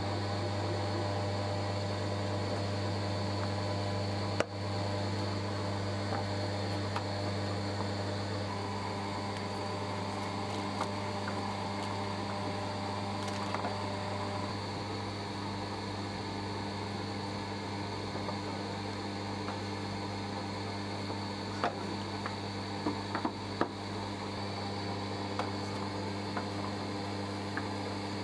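Electric machine running with a steady, low hum, with a few light clicks and taps about two-thirds of the way through.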